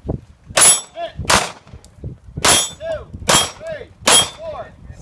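Five pistol shots fired at a steady pace, roughly one a second. A short ringing tone follows most of the shots.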